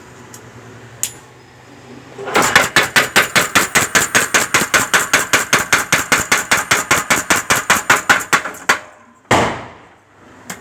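Forging hammer striking metal in a fast, even run of sharp blows, about seven a second, for roughly six seconds, while a scissor or cutter blank is forged. A couple of single blows follow near the end.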